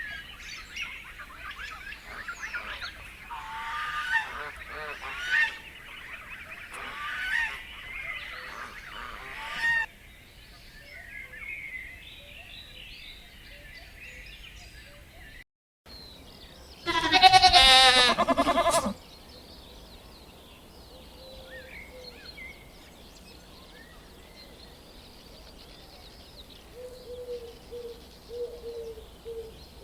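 Farm poultry calling: several overlapping honking calls for about ten seconds. After a cut, one loud, drawn-out pulsing call comes at about the middle, followed by quieter scattered chirps.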